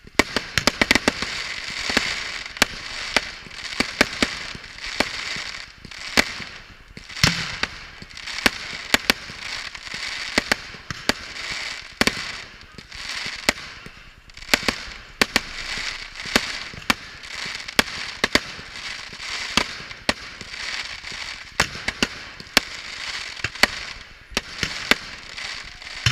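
Aerial firework display: a rapid, unbroken run of sharp bangs and cracks from shells bursting overhead, over a continuous hissing crackle, cutting off abruptly at the end.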